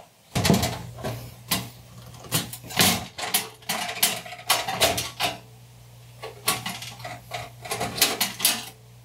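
Screwdriver and screws clicking and clinking against the Tandy 1000 SX's bare steel chassis frame as the motherboard's mounting screws are backed out. The sharp metallic clinks come irregularly, over a low steady hum.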